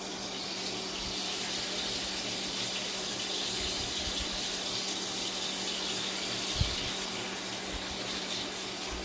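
Thin-sliced ribeye steak sizzling in hot olive oil in a frying pan, a steady hiss. There is one short knock about two-thirds of the way through.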